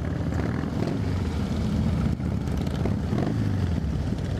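Several Harley-Davidson V-twin motorcycle engines running steadily at low revs as the bikes roll slowly in at walking pace.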